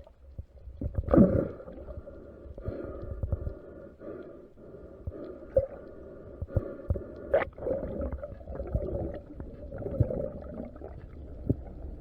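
Muffled underwater sound picked up through a camera housing: a low rumble with scattered clicks and knocks, and a louder thump about a second in.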